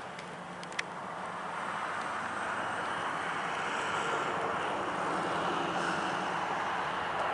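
Engine noise that grows louder over the first few seconds and then holds steady, with one small click about a second in.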